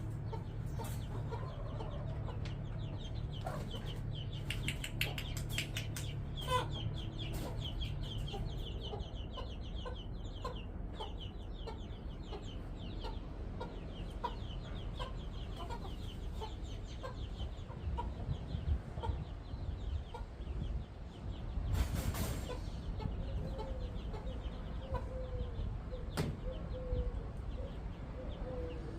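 Backyard chickens clucking and calling, with many short repeated calls throughout and a longer, wavering call near the end.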